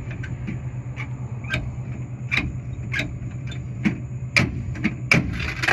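Fingers prying in a vending machine's coin return: a run of irregular metallic clicks and knocks over a steady low hum, and near the end a clatter of coins dropping loose.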